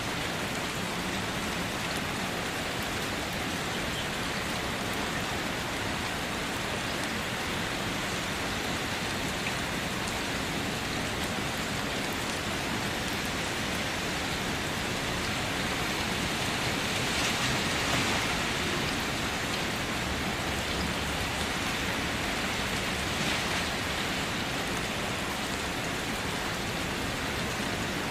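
Steady rain falling, an even hiss of drops, swelling slightly louder about two-thirds of the way through.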